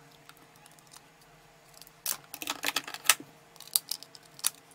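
A 2.5-inch laptop hard drive being handled and fitted into a clear plastic USB enclosure: a quick run of sharp plastic clicks and knocks starting about two seconds in, over a faint steady hum.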